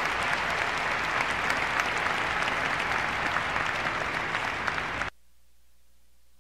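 Large audience applauding, a dense patter of many hands, which cuts off abruptly about five seconds in, leaving only a faint hum.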